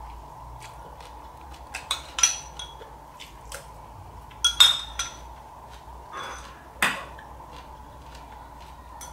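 A metal spoon clinks against a ceramic bowl of soup and rice as it is scooped and eaten from: a dozen or so irregular light clinks, a few louder ones about halfway through and near the end.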